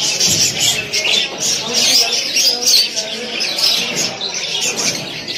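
Many caged budgerigars chirping and chattering together, a dense, continuous din of quick, overlapping calls.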